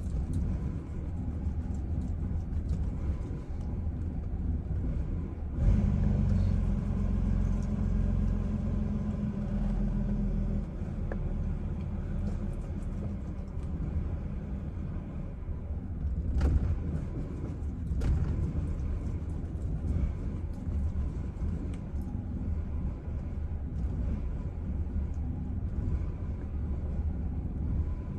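Chevrolet Silverado engine idling roughly, a steady low rumble. It runs louder and stronger for several seconds starting about six seconds in, then settles back.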